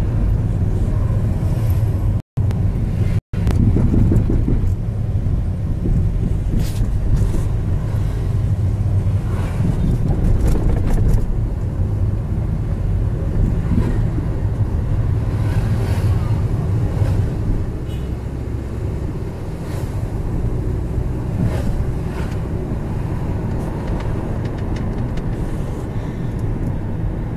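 Steady low rumble of road and engine noise inside a moving car's cabin. The sound cuts out completely for an instant twice, about two and three seconds in.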